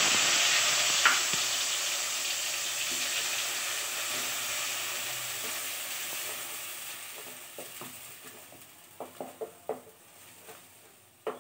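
Onion, garlic and green chilli paste sizzling loudly in hot oil in a kadai, the sizzle fading steadily as the paste cooks down. A wooden spatula stirs and taps against the pan a few times near the end.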